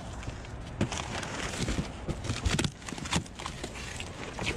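Loose plastic parts and empty boxes being rummaged through and handled in a dumpster: irregular clicks, knocks and rustling.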